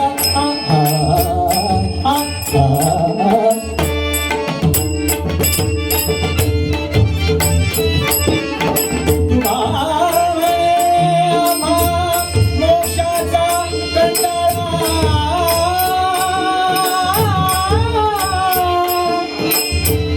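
Devotional bhajan music: a steady drone, hand-drum beats and rapid clashing strokes of small hand cymbals. From about ten seconds in, a long held melody line bends and wavers over them.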